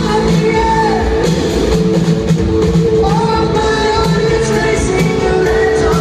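Rock band playing live: distorted electric guitars, bass and drums with a male lead singer, loud and steady throughout.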